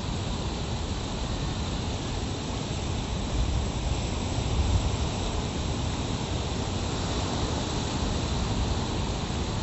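Rough surf breaking and washing over a rocky shore, a steady roar of water noise with wind buffeting the microphone in a deep rumble that swells briefly a few times, most around four to five seconds in.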